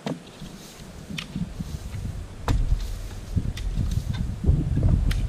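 Garden rake scraping and knocking through dirt and debris, a sharp tick about once a second. From about halfway a low, gusting rumble of wind on the microphone comes in and becomes the loudest sound.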